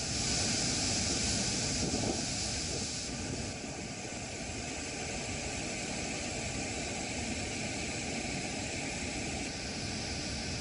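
Floodwater rushing through the open spillway gates of the Ukai Dam: a steady, loud roar of water noise, hissier for the first three seconds or so.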